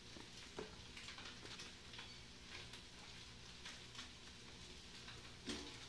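Faint, scattered soft taps and rustles of gloved hands handling a foam food tray while assembling a semita sandwich, over a low steady hum.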